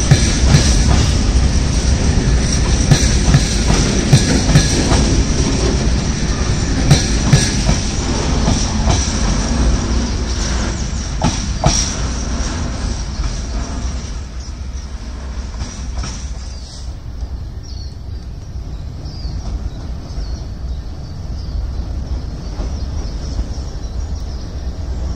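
Open box wagons of an engineering train rolling past, their wheels clicking over the rail joints with a high wheel squeal. The sound fades as the last wagon goes by, about halfway through.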